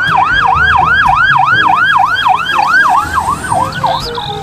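Toy police ambulance car's electronic siren sounding a fast yelp, a rising-and-falling wail repeating about three times a second. It shortens slightly near the end, then gives way to one falling tone.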